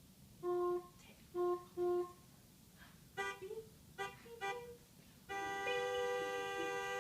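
Recorded car horn honks played back: three short beeps in the first two seconds, a few quicker beeps at a different pitch around three to four and a half seconds in, then one long steady honk from about five seconds in.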